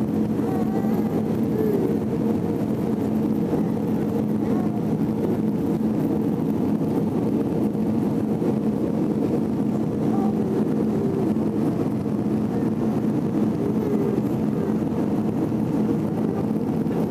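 Steady cabin noise of an Airbus A320 jet airliner in cruise: an even rush of engine and airflow noise with a steady low hum underneath.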